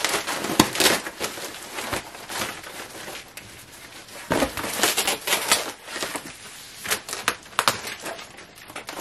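Cardboard shipping box being torn open and its flaps bent back by hand, in several bursts of crackling and ripping cardboard.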